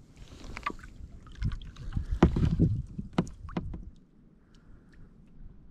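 Kayak paddle strokes on flat water: the blades dip in with a run of short splashes and drips, loudest in the middle, then it goes quieter for the last second or two.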